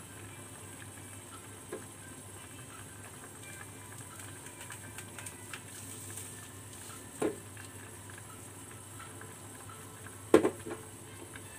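A pot of noodle broth simmering on the stove, a steady bubbling with small pops. Two short knocks break it, one about seven seconds in and a louder one about ten seconds in.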